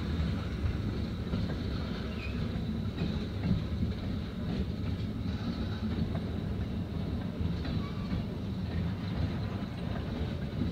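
Freight train of tank cars rolling past, a steady low rumble with a few faint wheel clicks over the rail joints.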